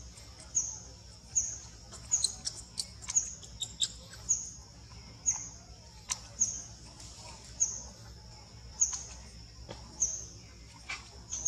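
A short, high chirp repeated steadily about once a second, with sharp clicks scattered among the chirps.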